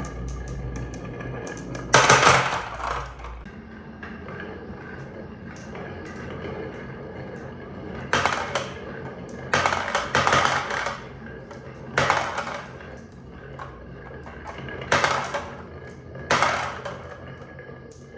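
Marbles rolling and clattering down a marble run made of a wooden track and a plastic toy garage, with about seven sharp clacks at uneven intervals as they drop and strike the track, and a softer rolling rattle between them.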